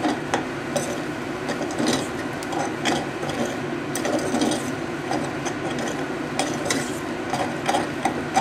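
A metal fork fluffing cooked rice in a stainless steel saucepan, scraping and clicking irregularly against the bottom and sides of the pot.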